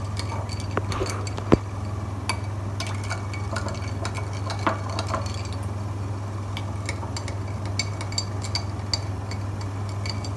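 A spoon stirring ice cubes in glasses of cold sharbat, with scattered clinks and taps of spoon and ice against the glass, the loudest about one and a half seconds in, over a steady low hum.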